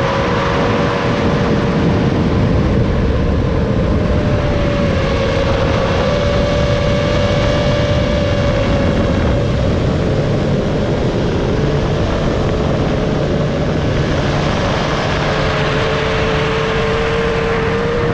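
FPV racing drone's motors and propellers whining steadily, the pitch drifting gently up and down, over a rough rushing noise.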